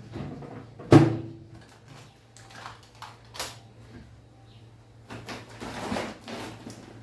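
Groceries being handled and set down: a sharp knock about a second in, then softer clicks and rustling near the end, over a faint low hum.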